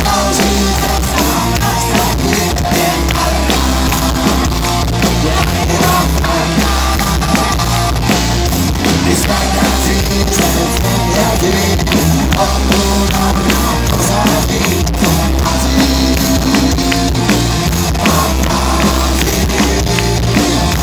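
Live rock band playing loud, with electric guitars, a drum kit and singing.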